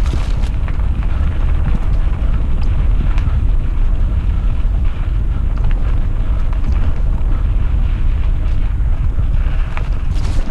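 Mountain bike ridden over a rough trail: a steady, heavy low rumble of wind and trail vibration on the microphone, with scattered clicks and rattles from the bike.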